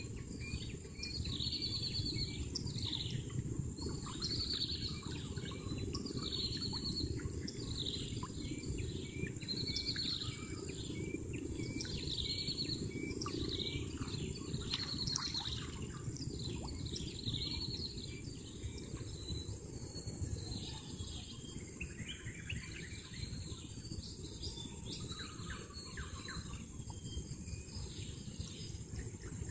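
Birds calling, short high chirps repeated roughly once a second, with some lower calls joining in during the second half, over a steady low rumbling noise.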